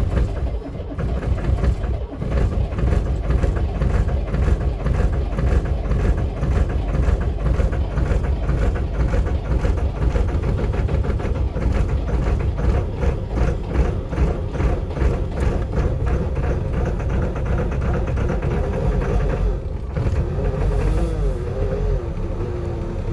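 Diesel engine of an MAN 10.224 truck idling at about 500–600 rpm just after a cold start at −24 °C, with a steady, evenly pulsing clatter. A wavering tone comes in near the end.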